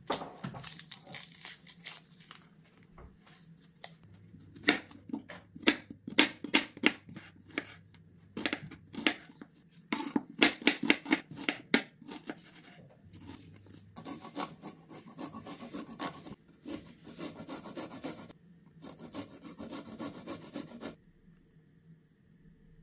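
Kitchen knife chopping an onion on a bamboo cutting board: sharp knocks of the blade on the wood, some in quick runs. At the start, the dry skin of the onion rubs and crackles as it is peeled.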